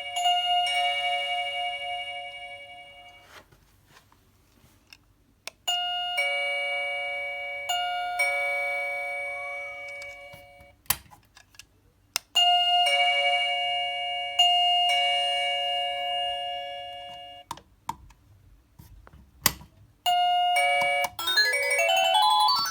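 Wireless doorbell receiver playing its two-tone ding-dong chime, a higher note then a lower one that ring out and fade, repeated several times with pauses and sharp clicks between. Near the end it changes to a different melody, a fast rising run of notes.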